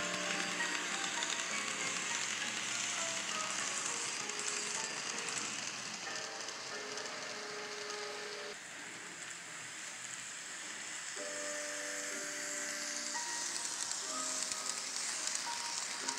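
N scale model trains running on the layout track: a steady, hissing whir of small motors and wheels, with soft background music underneath. The hiss drops briefly about halfway through.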